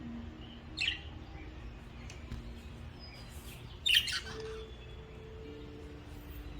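Budgerigar giving two short chirps, one about a second in and a louder one near four seconds in.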